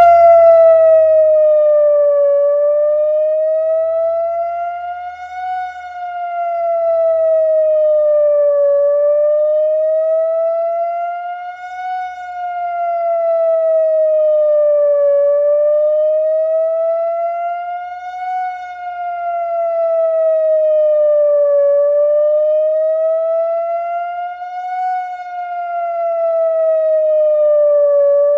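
ATI HPSS-16 electronic speaker siren sounding its wail signal: a steady pitched tone slowly rising and falling over a narrow range, about one cycle every six and a half seconds. It is loud, swelling at the top of each rise and dipping at the bottom.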